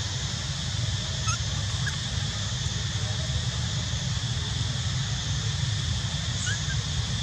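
Steady outdoor background noise, a low rumble with a hiss over it, with a few faint short chirps about a second in and again near the end.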